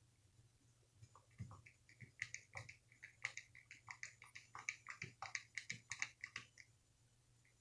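Faint, rapid clicking and ticking of small metal carburetor parts being handled and threaded together by hand. It starts about a second in and stops shortly before the end.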